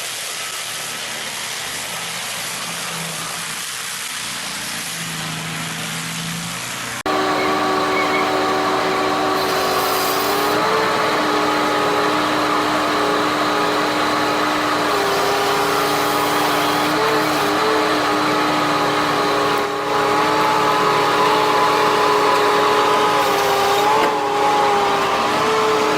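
Engine of a tree-cutting machine running steadily at an even pitch, dipping and rising slightly now and then. About seven seconds in, the sound cuts abruptly from a quieter, even mechanical noise to this louder engine.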